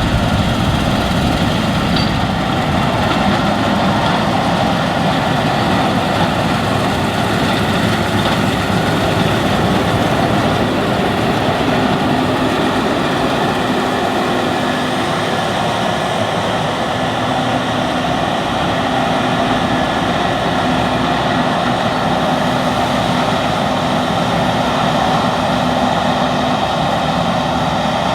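Case IH 6160 Axial-Flow combine running steadily under load while harvesting wheat: a continuous, even drone of engine and threshing machinery.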